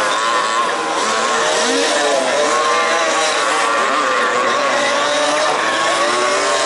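Several 1/5-scale RC off-road cars' small two-stroke petrol engines running together on the track, their pitches rising and falling as they are throttled on and off.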